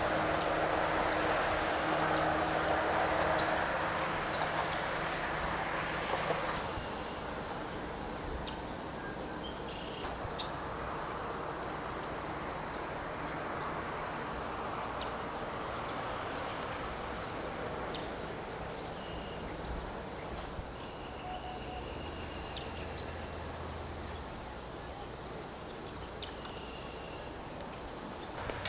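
Outdoor ambience: small birds chirping again and again in short high notes over a steady background hiss. The hiss is louder for the first six seconds or so, then eases.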